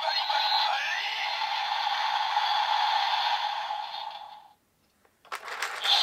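DX Build Driver toy belt, fitted with the Grease Blizzard Knuckle, playing a crackling ice sound effect from its speaker that ends the Glacial Attack finisher and fades out about four and a half seconds in. After a brief silence, the driver's crank lever is turned, with a rapid run of clicking.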